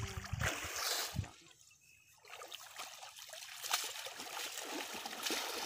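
Water trickling and sloshing off a wet cast net as it is gathered up by hand from a muddy pond, with splashing in the first second, a short lull, then steady dripping.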